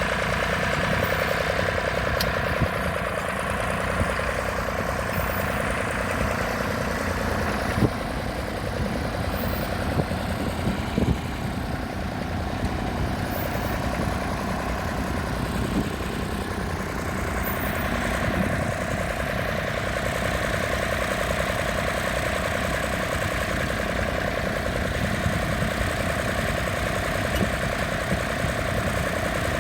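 Tractor engine running steadily close by, with a few light knocks over it.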